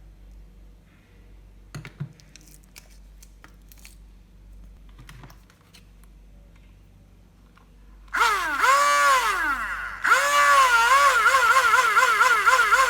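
Small 12 V DC motor of a homemade mini hand drill run in short pulses, its whine rising and falling in pitch as it speeds up and slows, about four times a second near the end. Before it starts there are several seconds of near quiet with a few faint handling clicks.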